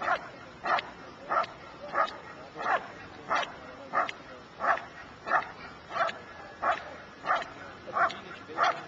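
A working dog doing schutzhund protection work, barking in a steady, even rhythm of single barks, about three every two seconds.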